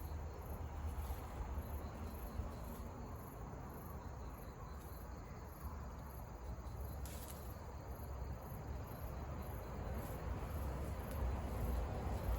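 High-pitched insect chirping, pulsing evenly at about two chirps a second, over a low outdoor rumble, with a sharp click about seven seconds in.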